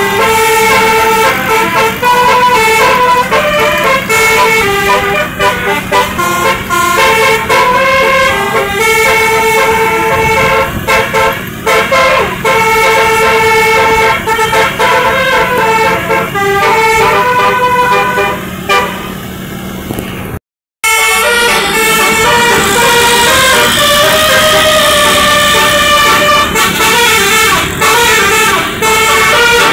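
A bus's Basuri telolet horn playing a tune of stepping musical notes. It breaks off for an instant about twenty seconds in, then another tune follows.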